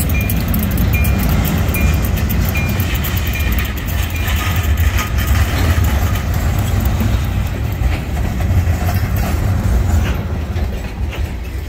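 Freight cars of a passing train rolling over the rails, a steady low rumble with wheel clatter. A short high ding repeats about every 0.7 s for the first few seconds, and the rumble eases a little near the end as the last car goes by.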